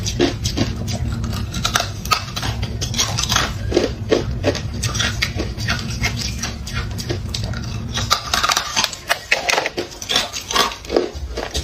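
Hard clear ice being bitten and chewed close to the microphone: a dense run of sharp crunches and cracks. A low hum sits underneath and stops about eight seconds in.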